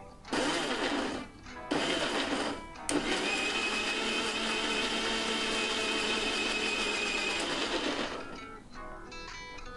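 Mixer grinder blending chopped sweet melon in its steel jar: two short pulses, then a steady run of about five seconds that stops near the end.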